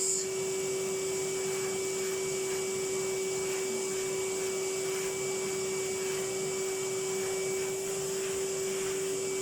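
Household vacuum cleaner running steadily, with a constant motor whine over an even rush of suction air.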